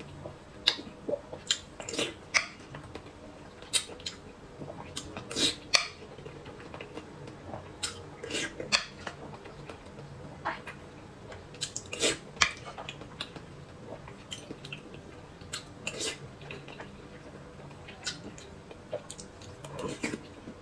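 Close-miked eating sounds: irregular wet chewing and mouth smacks as boiled eggs and noodles are eaten, with an occasional metal spoon clink against the metal bowl.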